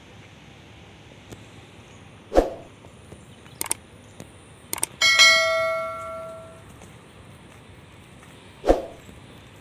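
Subscribe-button overlay sound effect: a couple of mouse clicks, then a bright notification-bell ding that rings and dies away over about a second and a half. A dull thump comes about two seconds in and another near the end.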